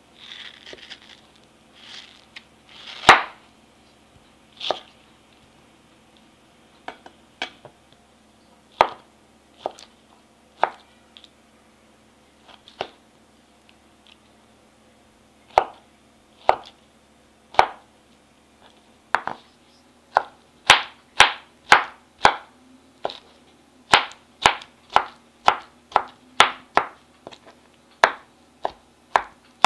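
Wide-bladed kitchen knife chopping mango on a wooden cutting board: scattered knocks of the blade hitting the board, then, about two-thirds of the way through, a steady run of chops about two a second as the mango is diced.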